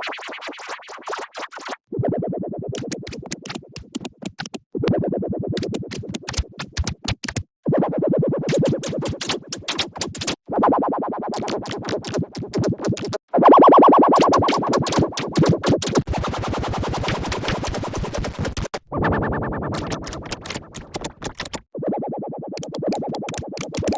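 Mouse-click sound effect heavily processed with delay and pitch effects, so the clicks repeat so fast that they merge into buzzy, synth-like tones. It comes in sections of about three seconds with short breaks between, each section at a different pitch.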